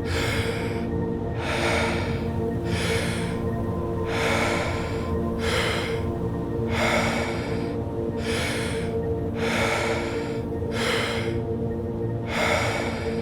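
Deep, rhythmic breaths of Wim Hof power breathing, a full breath sound about every second and a half, over a steady ambient music drone.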